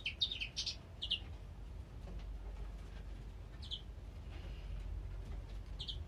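Small cage songbirds chirping: a quick run of short high chirps in the first second, then single chirps about four seconds in and again near the end, over a low steady hum.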